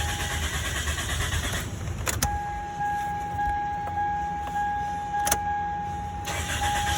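2002 Chevrolet Prizm's 1.8-litre four-cylinder engine running after starting on a newly replaced fuel pump assembly, a sign that fuel pressure is restored. Two sharp clicks come about two seconds and about five seconds in.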